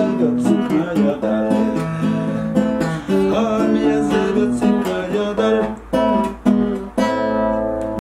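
Nylon-string classical guitar strummed in chords, the instrumental close of a song after the last sung line, ending on a chord left to ring.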